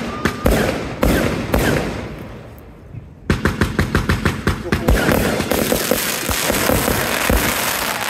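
Fireworks display: a few loud shell bursts in the first second and a half, then a fading lull of about two seconds. After that comes a rapid run of crackling bangs, several a second.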